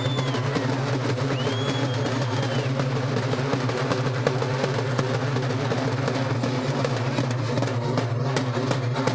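Rope-laced barrel drums beaten together in a fast, dense, unbroken rhythm. A high held tone rises, holds and falls twice in the first three seconds.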